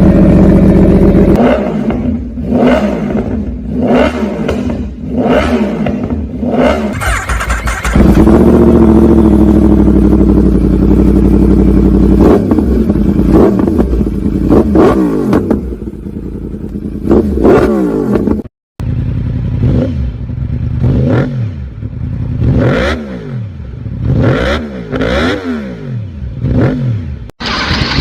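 Yamaha YZF-R1 inline-four sport bike engine through aftermarket exhausts, revved again and again in quick blips that rise and fall, and held at high revs for a few seconds about eight seconds in. The sound breaks off briefly twice as one bike's clip gives way to the next.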